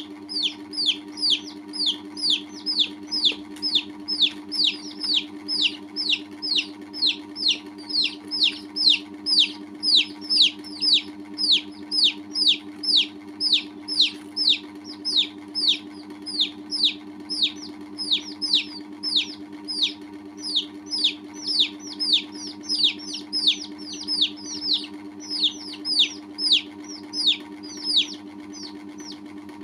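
Domestic chicken chicks peeping loudly and repeatedly, each peep a quick falling note, about two a second, stopping shortly before the end. A steady low hum runs underneath.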